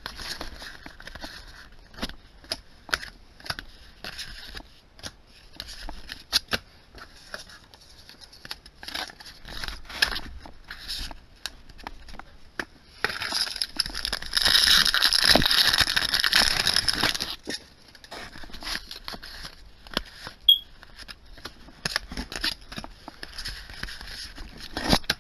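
Yu-Gi-Oh! trading cards being handled and flicked through one by one, with many small card clicks and slaps. About halfway through comes a few seconds of louder crinkling, typical of a foil booster pack wrapper being handled or torn open.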